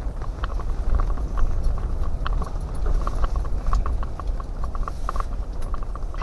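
Wind buffeting an ice-fishing tent: a steady low rumble with quick, irregular light ticks throughout.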